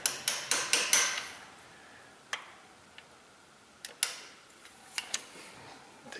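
Small hammer tapping a socket to drive a new transmission filter seal up into its bore in a 4L60E automatic transmission. Sharp metallic taps: a quick run of about six in the first second, then single taps and close pairs about a second apart.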